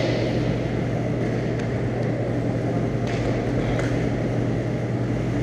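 Indoor hockey rink ambience: a steady low hum under an even wash of arena noise, with a few faint knocks from play on the rink.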